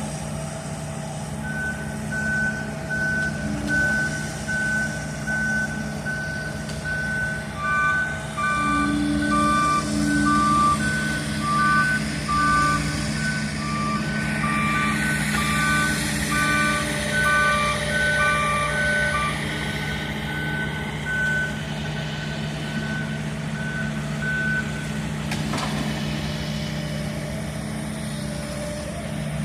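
Two tracked excavators with diesel engines running and their travel alarms beeping as they move. One alarm beeps steadily until a few seconds before the end. A second, lower-pitched alarm beeps alongside it from about eight seconds in until just before twenty seconds.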